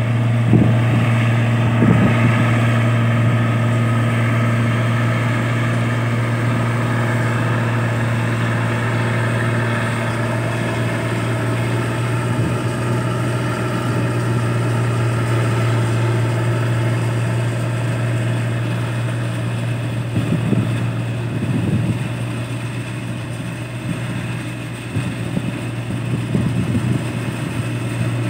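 New Holland 8070 combine harvester running steadily under load as it cuts and threshes rice: a deep, even engine hum with the steady whine of the machinery above it. A few dull low thumps come in the last third.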